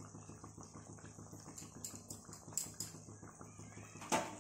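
Thekua deep-frying in a kadai of hot oil and ghee: a soft, steady sizzle of fine crackles, with a few sharper pops and a louder click about four seconds in.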